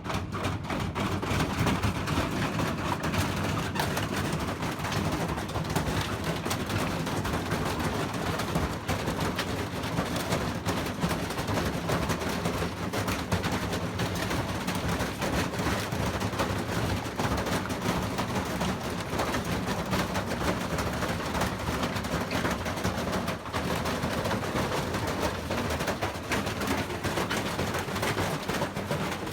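Washing machine spinning, with a continuous rapid clattering over a steady low hum.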